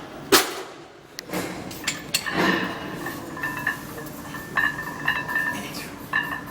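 Barbell and weight plates clanking and clinking, metal on metal, as a bench press set gets under way: one sharp knock about a third of a second in, then several lighter clinks. From about halfway, background music comes in with steady high notes.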